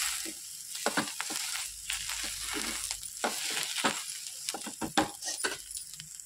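Oil sizzling under a just-flipped moong dal dosa (pesarattu) in a nonstick pan, fading gradually, while a steel spatula taps and scrapes against the pan many times.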